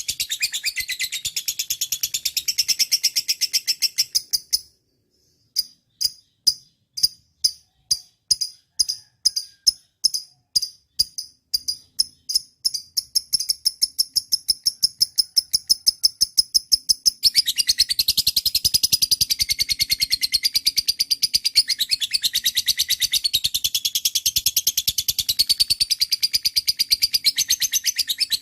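Lovebird singing in high-pitched chattering chirps. The song breaks off about four and a half seconds in, then starts again as separate chirps that quicken into a fast, even trill, and turns back into dense chattering a little past the middle.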